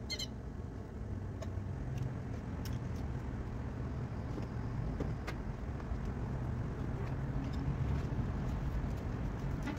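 Steady low mechanical rumble, with a few faint clicks over it.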